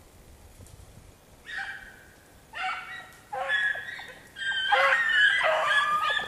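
A pack of hounds baying. A first long bay comes about a second and a half in, then more bays follow closer together, until from about halfway several dogs are baying at once, overlapping.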